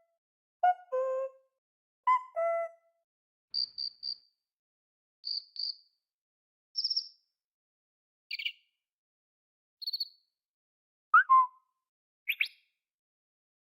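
Short electronic notification and interface tones from a Xiaomi Mi 9 SE phone, played one after another with silence between: about nine separate sounds, first two falling two-note chimes, then short high beeps and blips.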